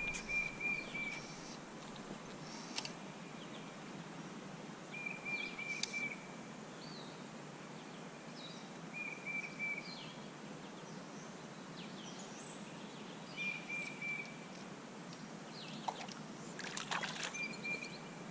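Steady rush of a flowing creek, with a bird repeating a short, even trill about every four seconds and other birds chirping in between. A brief cluster of sharper sounds comes near the end.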